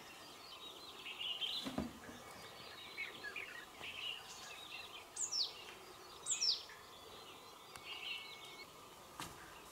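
Wild birds calling: scattered faint chirps, and twice, about a second apart, a sharp high whistle sliding down in pitch. A soft low thump about two seconds in.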